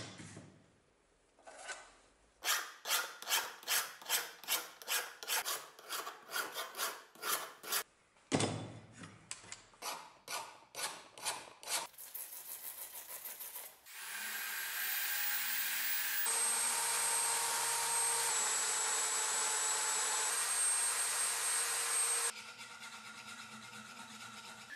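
Hand file rasping on the steel tang of a handmade axe head, in regular strokes of about two to three a second. About fourteen seconds in, a steady, louder machine-like noise with a high whine takes over for some eight seconds, then drops to a quieter steady noise.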